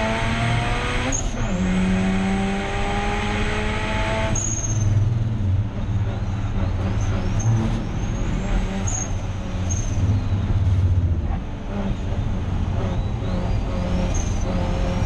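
Turbocharged 13B rotary engine of a Mazda RX8 race car pulling hard. Its pitch climbs, drops at a gear change about a second in, and climbs again until about four seconds. It then runs at a lower, varying note, with a few short high squeaks.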